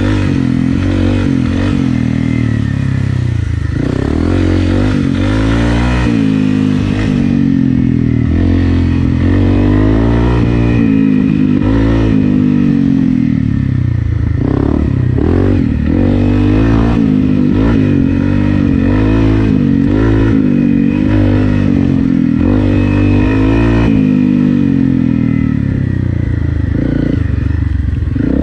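Honda CRF250 Rally's single-cylinder four-stroke engine running under way on a dirt trail. Its pitch rises and falls over and over as the throttle is opened and rolled off, with some clatter from the bike.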